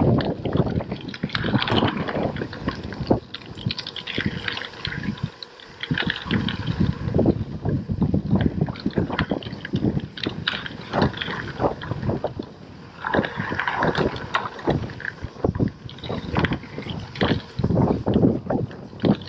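Gravel bike tyres crunching and rattling over a loose gravel track, an uneven stream of small clicks and knocks with wind on the microphone. It goes briefly quieter about five seconds in.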